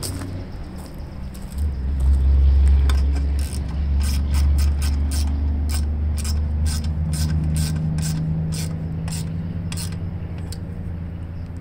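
Socket ratchet clicking in quick, even strokes while a bolt on a lawn mower engine is tightened, over a low rumble that is loudest in the first few seconds.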